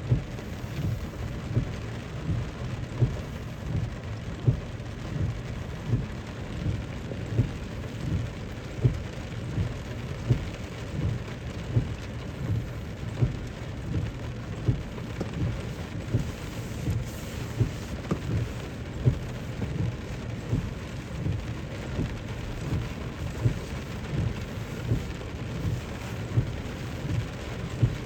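Steady rain falling on a car, with louder single drops striking about once a second.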